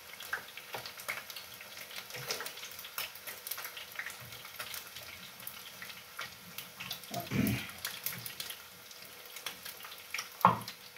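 Hand-held knife cutting vegetables, giving small irregular clicks and crackles over a faint steady hiss from the stove. A brief louder low sound comes about seven seconds in.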